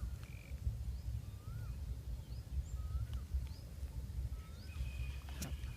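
A bird repeats a short whistled note that rises and falls, about once every second and a half, with fainter higher chirps, over a steady low rumble of wind on the microphone. A sharp click comes near the end.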